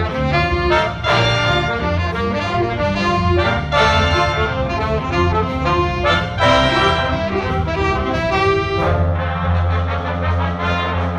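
Student jazz big band playing: saxophones, trumpets and trombones with electric bass. Short accented horn figures give way to longer held chords over the bass about nine seconds in.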